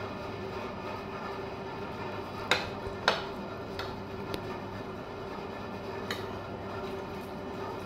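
Metal spoons and forks clinking and scraping against ceramic plates of macaroni: two sharp clinks about two and a half and three seconds in, then a few lighter taps. A steady low hum runs underneath.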